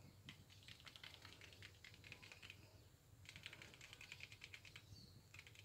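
Faint, rapid small clicks in three runs, the first two about two seconds long and the last one shorter near the end.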